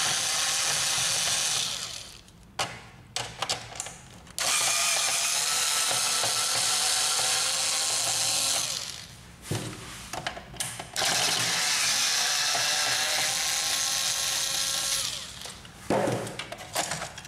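Cordless electric screwdriver backing out the screws of a laser printer's laser scanner unit: the motor runs steadily with a whine in three stretches of a few seconds each, the first ending about two seconds in. Short clicks and taps come between the runs.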